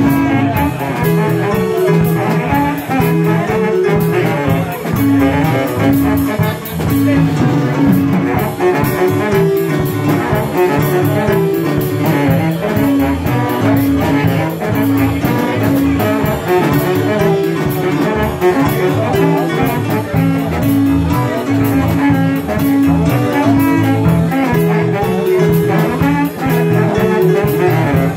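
Live band playing an instrumental passage: saxophone over keyboard, bass guitar, drums and hand percussion in a steady, repeating groove.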